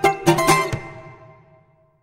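Ten-string bandolim (Brazilian mandolin) music reaching its end: a few last quick plucked notes, then a final chord that rings and fades out to silence.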